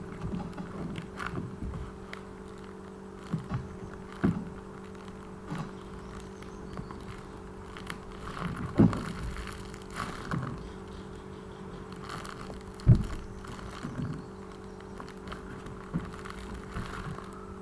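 Scattered soft knocks and handling noises, the loudest about halfway and about three quarters of the way through, over a steady low hum.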